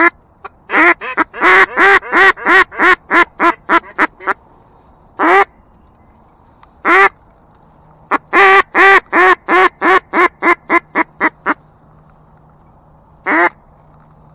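Hunter's duck call blown in loud hen-mallard quacks: a run of about a dozen notes that grow shorter and quieter, two single quacks, a second falling run midway and one more quack near the end. It is a hail or greeting call to bring passing ducks in to the decoys.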